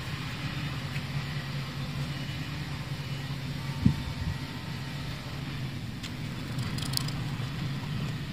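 An engine running steadily with a low, even hum, and one short thump about four seconds in.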